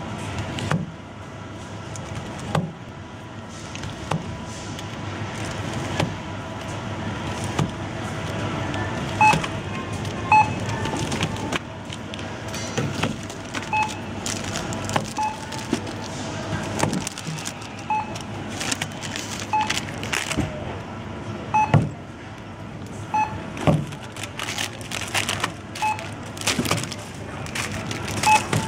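Supermarket checkout barcode scanner giving short beeps every second or two as items are scanned, from about nine seconds in. Items knock now and then as they are set down on the checkout conveyor belt, over steady store background noise.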